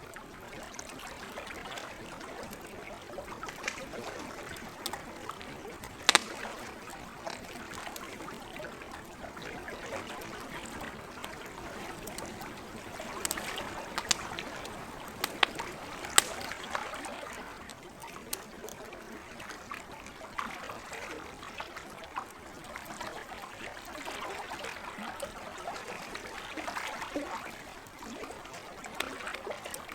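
Campfire crackling, with sharp pops scattered through it, the loudest about six seconds in and a cluster near the middle, over a steady wash of gentle lake water.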